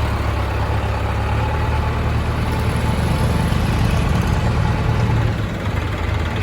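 Heavy diesel engine running steadily, with a strong low rumble.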